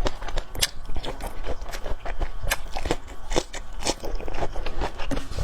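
A person biting and chewing food up close to the microphone, with irregular sharp clicks and wet mouth noises several times a second.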